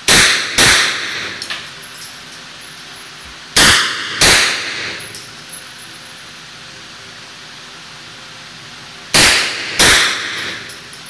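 Six shots from a UDMC S9 9mm AR-style gun, fired in three pairs about half a second apart, the pairs several seconds apart. Each pair echoes and fades in the indoor shooting range.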